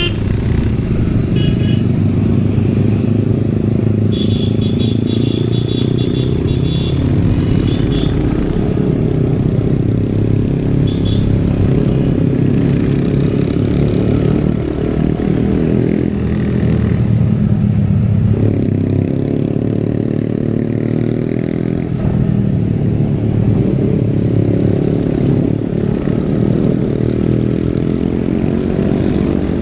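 Royal Enfield Hunter 350's single-cylinder engine and exhaust running under way, the note rising and falling with the throttle.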